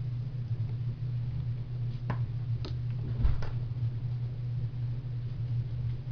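Steady low hum, with a few light knocks and one low thump about three seconds in as puppies move about on the floor.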